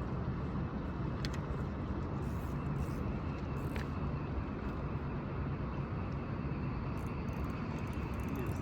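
Steady low outdoor rumble with no clear single source, with two faint clicks about a second and nearly four seconds in.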